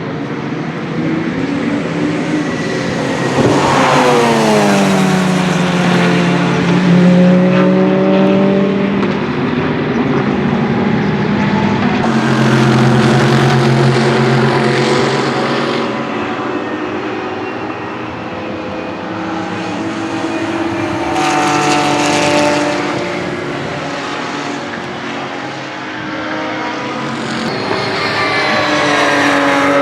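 Several race cars at speed passing one after another, each engine note swelling as it approaches and dropping in pitch as it goes by, with more engines running on in the background.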